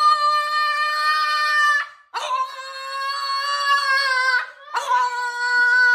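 French bulldog howling: three long, high-pitched, fairly steady howls of about two seconds each, with short breaks between.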